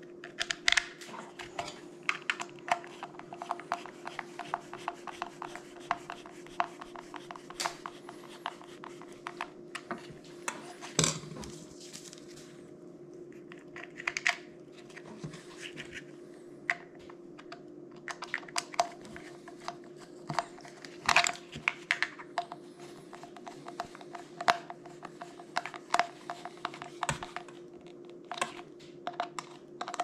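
Hand screwdriver driving screws into a plastic dishwasher drain pump housing, with irregular clicks and short scrapes from the tool and the plastic pump parts being handled.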